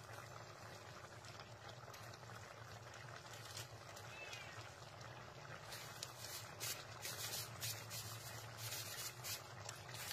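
Squid and eggplant stew in coconut milk bubbling in a pan, a steady low simmer with small pops that come thicker about six seconds in. A faint brief high call sounds once about four seconds in.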